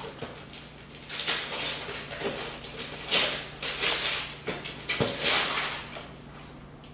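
Wrapping paper being torn and rustled as a present is unwrapped: a series of short, noisy rips over several seconds.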